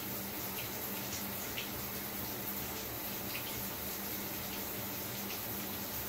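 Shower running steadily: an even hiss of falling spray with a few small splashes scattered through it and a faint low hum underneath.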